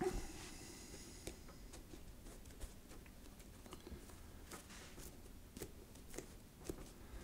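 Faint handling of a foam puppet head: light scrapes, rustles and scattered soft clicks as the foam pieces are pressed and turned by hand, with a brief louder scrape right at the start.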